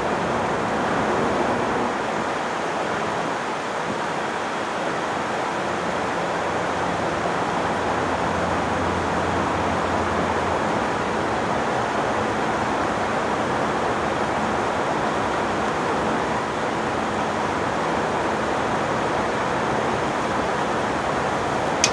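Steady wind rushing on the microphone over the low hum of a string of CSX diesel locomotives moving slowly through the yard; a faint low engine tone is clearest in the middle.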